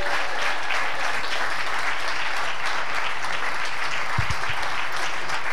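Congregation applauding steadily, with a brief low thump about four seconds in.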